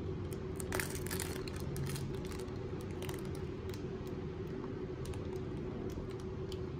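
Plastic snack wrapper crinkling and crackling in quick clicks as it is pulled open and a packaged sponge cake is slid out onto a plate. A steady low hum runs underneath.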